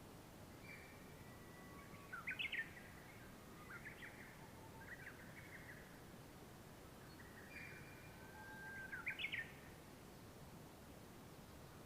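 A bird singing faintly: two similar phrases of quick chirps sweeping up and down, about two and nine seconds in, with softer chirps between them, over a low hiss.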